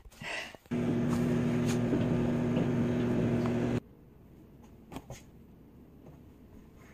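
A steady machine hum with a low drone runs for about three seconds and cuts off suddenly. Faint room tone and a couple of soft knocks follow.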